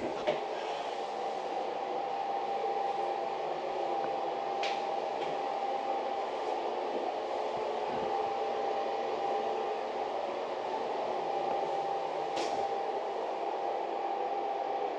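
A fan running steadily in a small room: an even hum and hiss with a faint constant whine, and a couple of faint ticks.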